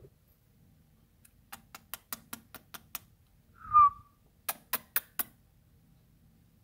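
Pet parrot giving one short whistle that falls slightly in pitch, about halfway through. Before it comes a quick run of about eight sharp clicks, and after it four more.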